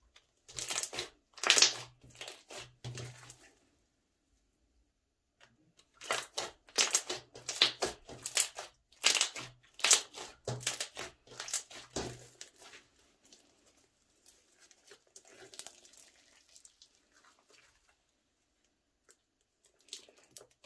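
Thick purple slime being stretched, pulled apart and squeezed by hand: sticky crackling and squishing in bursts. It is loudest in the first few seconds and again from about six to twelve seconds in, then grows faint and sparse.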